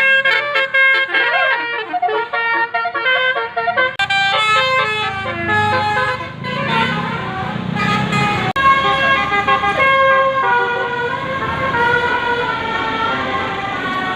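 Bus 'telolet basuri' multi-tone musical air horn on the Fajar 61 Majesty, playing a fast tune of quick-stepping notes over a low rumble, with a brief break about two-thirds of the way through.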